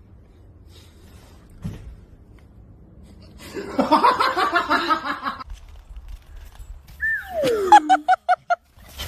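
Bursts of laughter: a dense run of rapid laughing about three and a half seconds in, then a falling cry followed by a quick string of short laughing pulses near the end.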